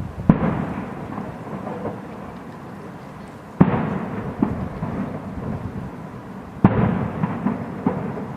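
Aerial firework shells bursting: three loud bangs about three seconds apart, each followed by a long rolling rumble with a few smaller pops in it.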